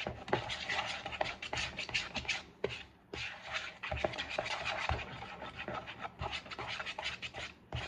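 Waffle batter being stirred in a mixing bowl: a steady run of quick, irregular scrapes and light knocks against the bowl, with a brief pause about three seconds in.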